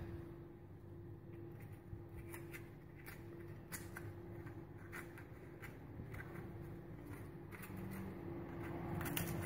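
Small blade tip scraping the seeds out of a slit bitter gourd over a ceramic plate: faint, irregular scratching and light clicks, a little sharper near the end. A steady low hum runs underneath.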